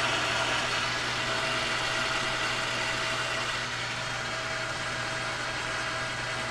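Metal lathe running steadily, its motor and gearing giving a constant hum with a faint steady whine.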